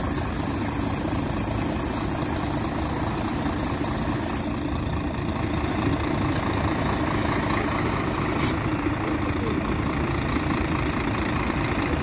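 Mercedes-Benz Citaro city bus diesel engine idling, a steady low rumble.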